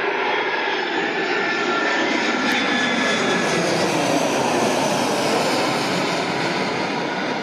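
Airbus A320-family twinjet airliner passing low overhead on approach with gear down: a loud, steady jet roar with a thin engine whine, its pitch falling as the aircraft goes over and away.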